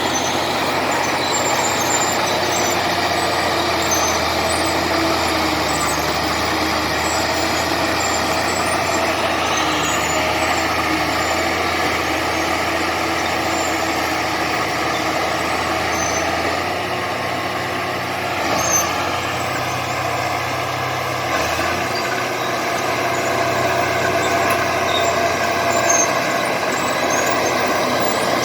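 D70LE crawler bulldozer's diesel engine running steadily at working load, with its pitch shifting slightly past the middle and a few brief knocks in the second half.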